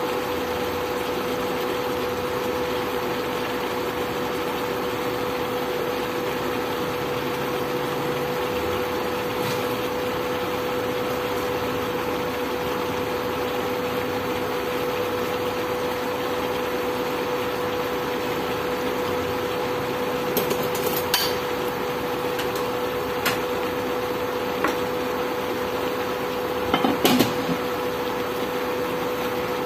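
Steady hum of a portable electric cooktop with its cooling fan running, with a constant mid-pitched tone. A few short, sharp clinks and knocks come in the last third.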